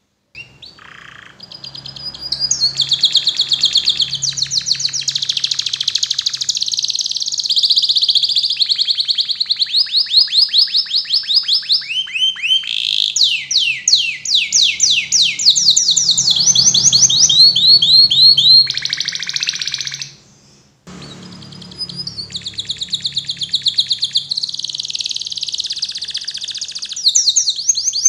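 Domestic canary singing a long song of fast, high-pitched trills and rolls, each phrase a quick run of repeated notes, changing from one phrase to the next. The song breaks off briefly just after the start and again about two-thirds of the way through.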